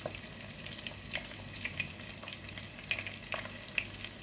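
Chunks of pork sausage frying in oil in a pan: a steady low sizzle with scattered small crackles and pops.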